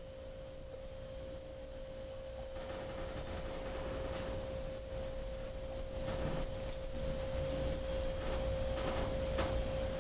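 A steady, even tone runs throughout, with a few faint clicks and clinks as metal wrenches are handled, about four seconds in and again near the end.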